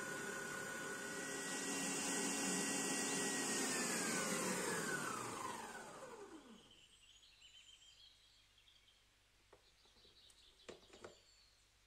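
Electric stand mixer motor running with a steady whine as its wire whisk beats cream in a stainless steel bowl. About four seconds in, it is switched off, and the whine falls in pitch and fades as the motor winds down. Near the end there are a few light clicks as the mixer's head-release lever is turned.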